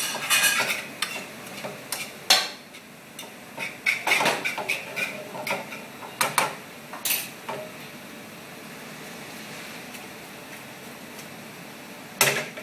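Metal tongs and utensils clattering, knocking and scraping in an aluminium sauté pan as black spaghettini are tossed through their sauce, with several sharp knocks. The second half is steadier and quieter, and a loud knock comes near the end.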